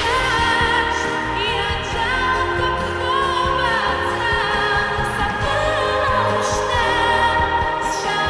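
A woman singing long held notes with vibrato over orchestral backing, with an added echo effect.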